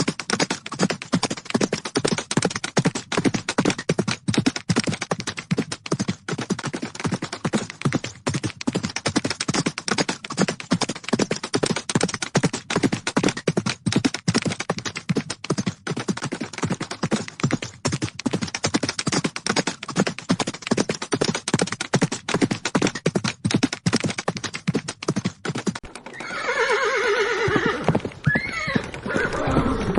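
Horses galloping, a rapid, continuous drumming of hoofbeats; about 26 seconds in, a horse gives a loud neigh that lasts several seconds, with the hoofbeats going on beneath it.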